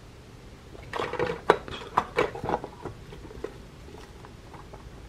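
Silicone spoon scraping and tapping cooked rice off the inner pot of a Dash mini rice cooker: a run of short scrapes and clicks starting about a second in, thinning out to a few light ticks.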